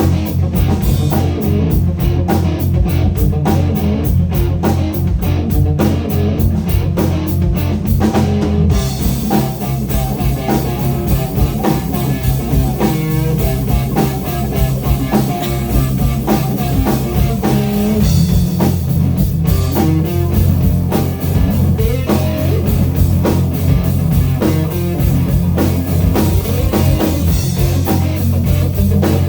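Live blues-rock band playing an instrumental passage: electric guitar over bass and a drum kit with a steady beat.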